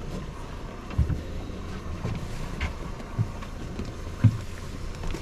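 Wind buffeting the microphone over a boat's steady low hum, with a few dull knocks of the camera being handled.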